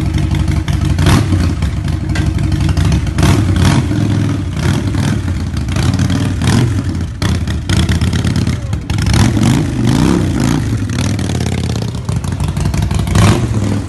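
Large cruiser motorcycle's engine revving repeatedly through a loud exhaust, its pitch rising and falling, with sharp crackles between revs; the bike rides off near the end.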